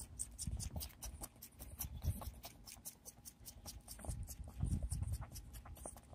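Baby goat sucking on a pacifier: a steady run of small wet clicks, about four a second, over low rumbling.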